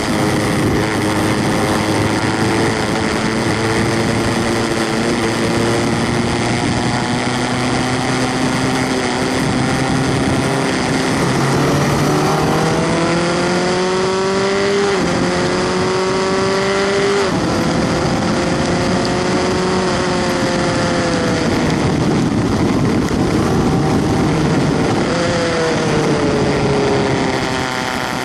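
Onboard sound of a Skip Barber formula car's 2.0-litre four-cylinder engine under hard acceleration, its pitch climbing and then dropping sharply at upshifts, about fifteen and seventeen seconds in. A further brief rise and fall follows near the end.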